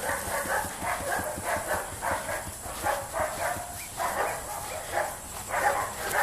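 Dogs barking over and over in quick, uneven runs.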